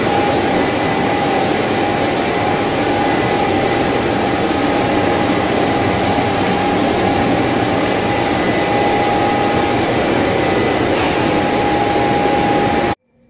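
Stainless-steel french-fries production line machinery running: a loud, steady rush of motors and air blowers with a steady whine over it. It cuts off suddenly near the end.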